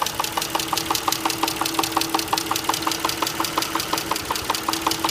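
Mitsubishi Galant engine idling with a rapid, even knock, about eight strikes a second. The owner takes it for a crankshaft knock but has not found its cause.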